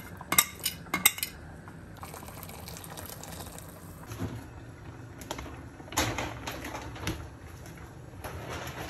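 Calamari frying in a pan, sizzling and bubbling steadily, with a few sharp clinks of a utensil against the pan in the first second and a louder crackle about six seconds in.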